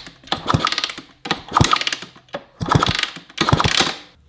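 Kawasaki KX100 two-stroke engine turned over on the kickstarter for a spark check, about four kicks in a row, each a short burst of rapid mechanical clatter. It turns over without firing.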